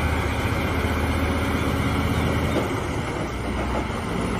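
Heavy diesel truck hauling a loaded lowboy trailer, its engine giving a steady low rumble over road noise. The deepest part of the rumble eases a little past halfway.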